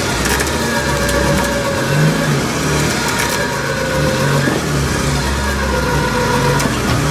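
UAZ-469 off-road vehicle's engine running steadily at low revs.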